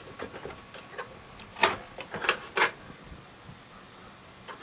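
Scattered sharp metallic clicks and knocks from metal parts being worked and handled, with three louder knocks in quick succession about one and a half to two and a half seconds in.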